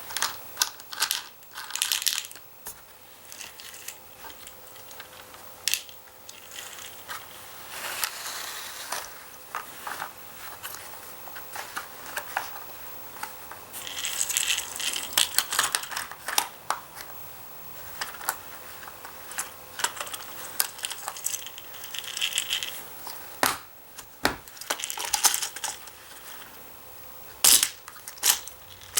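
Die-cast toy cars and plastic playset parts clicking and clattering, with irregular sharp clicks and busier stretches of rattling.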